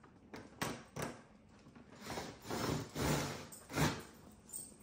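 Cordless drill with a long extension bit driving screws through a carbon fiber rear diffuser, run in short spurts: a few quick clicks in the first second, then several bursts of about half a second each.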